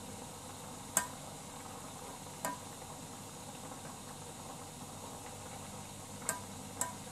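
A metal utensil stirring in a saucepan, clinking sharply against the pot four times, over the steady hiss of water bubbling in the pan.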